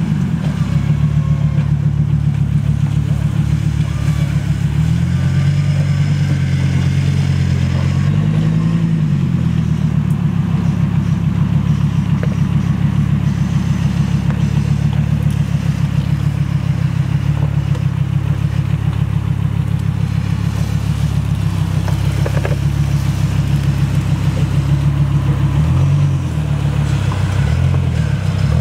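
Engine of a tube-frame off-road buggy running steadily at low revs while it crawls over rough ground, with the revs rising and falling briefly about four and eight seconds in and again near the end.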